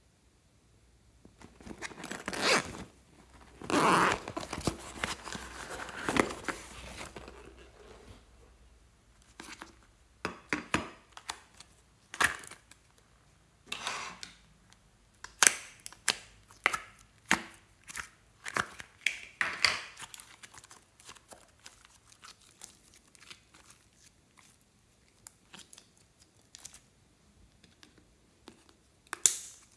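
Plastic slime tubs being handled and opened by hand: a few seconds of tearing and rustling, then a run of sharp plastic clicks and crackles.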